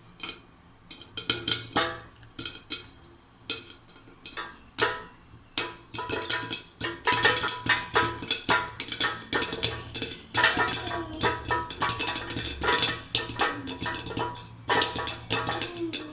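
Popcorn kernels popping in a pan covered with a plate, knocking against the lid: scattered pops at first, then a rapid, dense run from about six seconds in as the batch comes to full popping.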